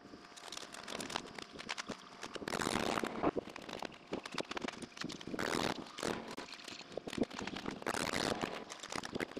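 Roofing work on an asphalt-shingle roof: a rapid, irregular scatter of sharp clicks and knocks from shingles being handled and fastened, with short rustling swells now and then.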